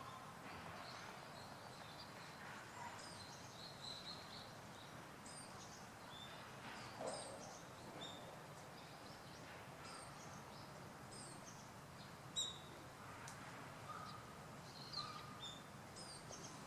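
Faint bird chirps: many short, high-pitched calls scattered throughout over a steady background hiss, with one sharp click about twelve seconds in.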